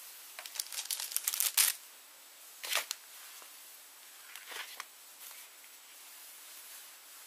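Arena silicone swim caps being handled and slid over one another by hand, giving crinkly rubbing rustles: a dense run in the first two seconds, a short sharp one about a second later, and a softer cluster about halfway through.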